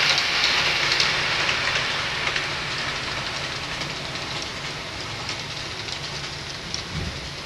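Train running noise: a steady rushing rumble with faint scattered clicks, slowly fading away just after a horn blast.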